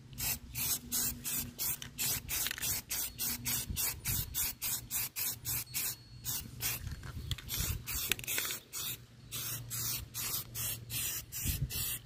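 Aerosol spray-paint can spraying in short, quick hissing bursts, about three or four a second, with a brief pause about nine seconds in, as a second coat goes on.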